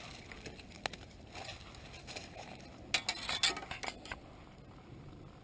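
A single light click, then about three seconds in a short cluster of clicks and clinks, like small hard objects being handled.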